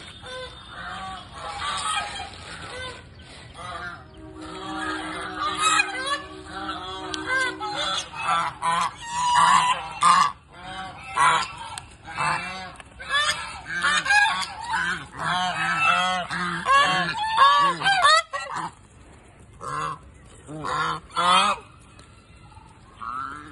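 A flock of white domestic ducks quacking loudly and repeatedly, many short calls overlapping in quick succession, with a brief lull a little past the three-quarter mark. These are hungry ducks begging for food.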